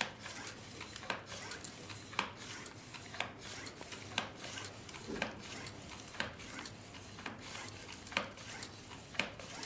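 Floor bicycle pump worked in steady strokes, about one a second, each stroke a brief hiss of air as it inflates a rubber pipe-stopper plug through a hose.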